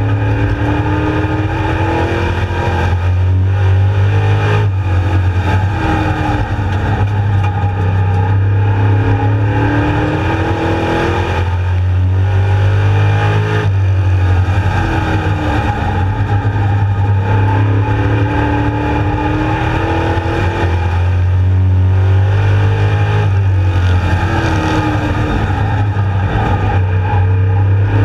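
Street Stock race car's engine heard from inside the cockpit, climbing in pitch again and again as it accelerates, then dropping back as it lifts, lap after lap.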